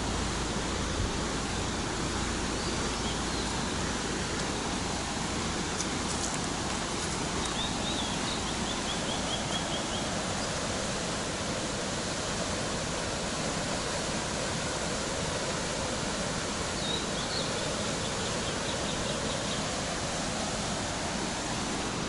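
Steady, even rushing of the Kogama Falls, a small waterfall about 5 m high pouring into a rock-walled plunge pool in a narrow gorge. Twice, a faint high trill sounds over the water noise.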